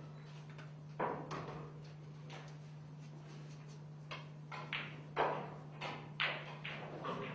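Scattered soft knocks and rustles, about eight in all and the strongest a little past the middle, over a steady low electrical hum.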